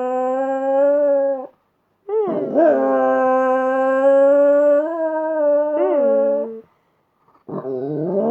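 A dog howling in long, held notes with short breaks between: one ends about a second and a half in, the next starts with a wavering swoop and is held for about four seconds, and a third begins near the end.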